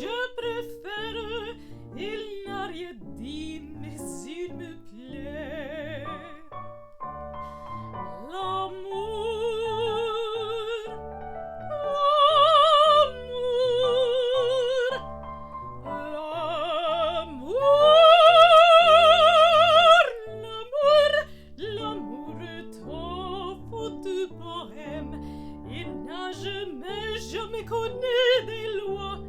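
A woman singing in a classical, operatic style with wide vibrato over piano accompaniment, with long held notes; the loudest, highest notes come about twelve seconds in and again from about eighteen to twenty seconds.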